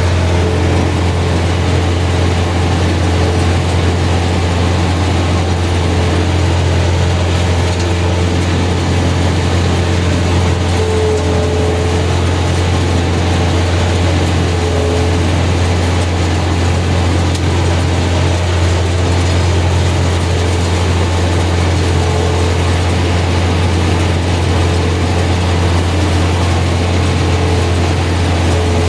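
Combine harvester running steadily while cutting beans, a constant low engine hum with the rattle of its threshing machinery.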